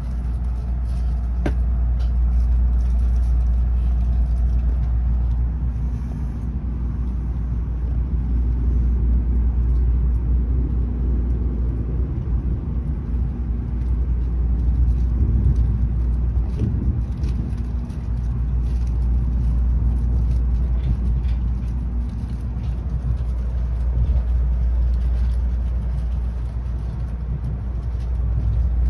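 Low, steady rumble inside a Tokaido Shinkansen passenger car as the train runs, swelling and easing a little, with a few faint clicks about one and a half to two seconds in.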